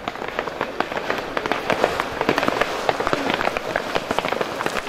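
A pack of mountain bikes riding off together: a dense, irregular crackle of sharp clicks and rattles from chains, gears and tyres.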